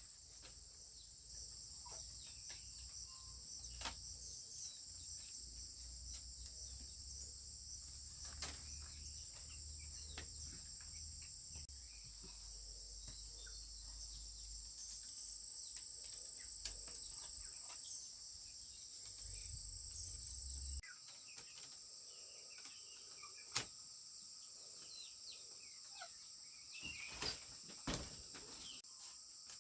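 A steady high drone of insects, with a few short bird chirps and scattered faint clicks over it. A low rumble underneath cuts off suddenly about two-thirds of the way through.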